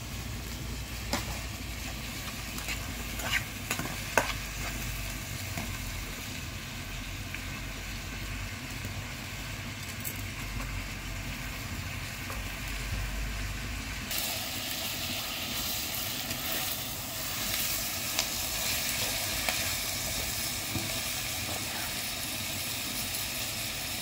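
Chopped onions sizzling as they fry in a metal pan over a wood fire, stirred with a metal utensil that scrapes and clinks against the pan, with a few sharp knocks in the first few seconds. Partway through the sizzle turns louder and brighter.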